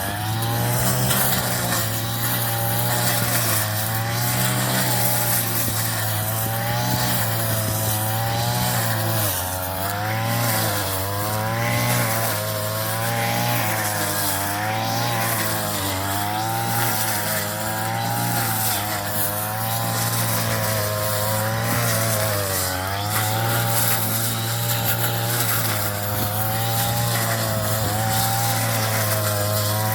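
Small engine of a straw-cutting machine running continuously while cutting rice straw, its pitch wavering up and down every second or two as the load changes.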